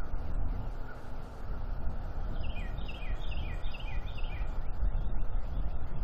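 Bald eagle giving its chattering call, a rapid run of short high piping notes lasting about two seconds, starting a little after two seconds in. A steady low rumble runs underneath.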